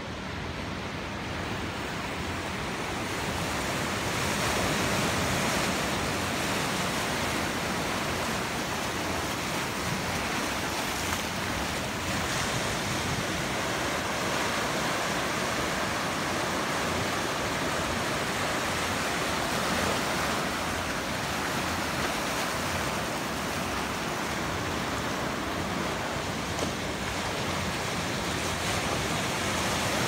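Atlantic Ocean surf: small waves breaking and washing onto the shore in a steady rush, growing louder over the first few seconds.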